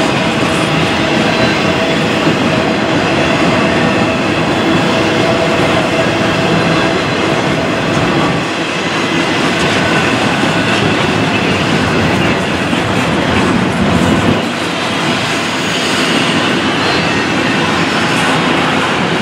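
Double-stack intermodal freight cars rolling past: a steady rumble and clatter of steel wheels on the rails.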